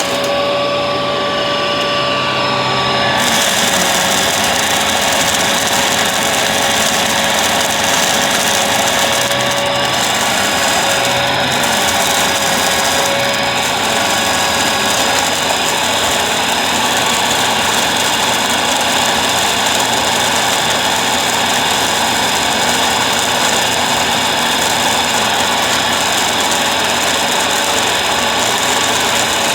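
Bissell vacuum cleaner running steadily: a loud motor whine over the rush of air. The high hiss of the airflow is muffled for about the first three seconds, then opens up fully.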